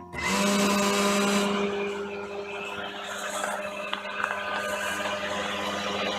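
Dremel rotary tool with a V-bit, mounted as the spindle of a ShapeOko CNC router, switching on and running at steady high speed with a steady hum as the glass-etching job begins. It is loudest for the first second and a half, then settles a little quieter.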